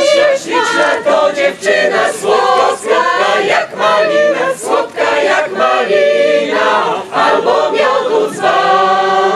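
Mixed choir of women's and men's voices singing a Polish folk song a cappella, in several parts. Near the end they hold a final chord for about a second.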